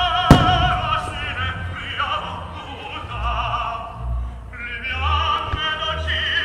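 Operatic singing with vibrato and orchestra accompanying a fireworks display, with a loud firework crack just after the start and several low booms of shells in the second half.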